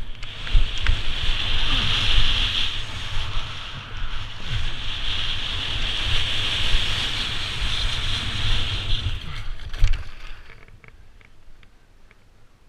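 Wind buffeting the microphone and a steady hiss of snow being scraped underfoot during a fast downhill run on snow. Both die away about ten seconds in as the rider slows to a stop.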